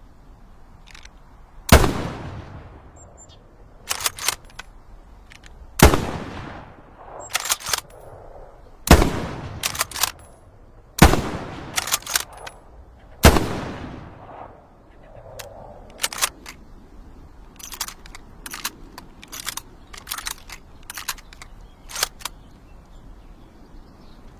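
Mosin-Nagant 91/30 bolt-action rifle in 7.62×54mmR firing five shots a few seconds apart, each report ringing off for about a second. Quick metallic clicks of the bolt being worked come between the shots, and a longer run of bolt and metal clicks follows the last shot.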